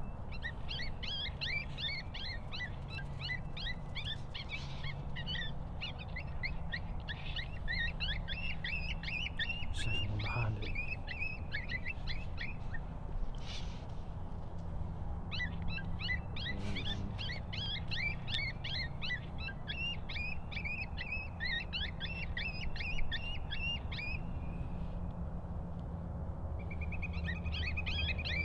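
Dense chorus of short, rapidly repeated high chirping calls from many small animals, pausing briefly about halfway through, over a steady low hum.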